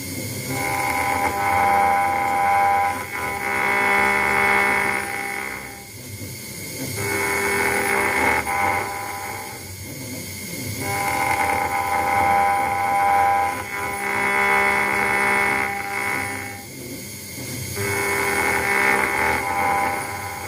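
CNC router engraving machine roughing a brass plate: a whine of several steady pitched tones that drops out for about a second and comes back every three to four seconds as the tool passes back and forth.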